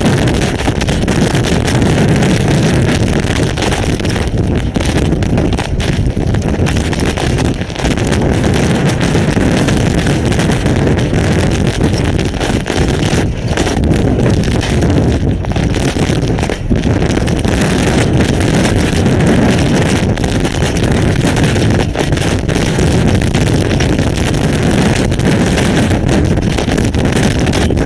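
Derecho-force thunderstorm wind blasting an outdoor webcam's microphone, with wind-driven hail and rain in it: a loud, constant rush that swells and dips with the gusts.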